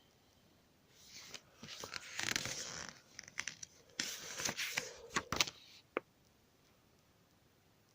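Paper pages of a thick booklet rustling as they are turned, in two spells with a few sharp taps.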